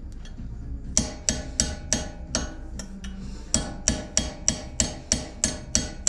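Steel claw hammer tapping a pin punch to drive out the pad retaining pin of a 2001 Mercedes ML430's front brake caliper. The taps come about three a second as sharp, ringing metal knocks, starting about a second in, with a short pause midway.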